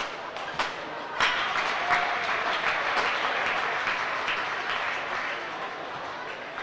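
Arena crowd applauding, swelling about a second in and slowly dying away, with a couple of sharp knocks just before it.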